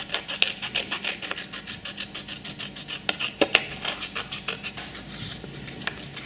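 Scissors snipping thin patterned craft paper in rapid short cuts, several a second, cutting a wavy edge. The snipping stops about five seconds in, followed by a brief rustle of the paper being handled.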